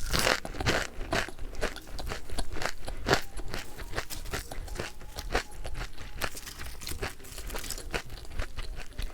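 Crispy fried chicken being bitten and chewed close to the microphone: a run of sharp, crackly crunches, densest near the start, with chewing in between.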